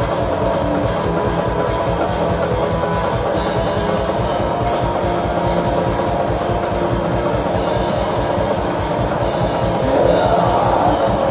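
Extreme metal band playing live: distorted electric guitars over fast, dense drumming on a drum kit. It grows louder about ten seconds in, where a harsh vocal comes in.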